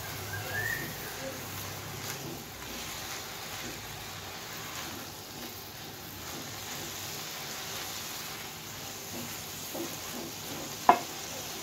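Tempe and vegetables sizzling in a metal wok while being stirred with a spatula, with light scraping and clatter. One sharp knock near the end.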